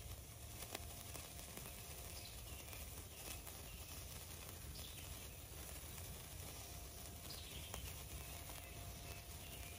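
Sunwing Happy Hour sparkler burning with a faint fizzing crackle and a couple of small pops. A bird gives a short falling call three times in the background.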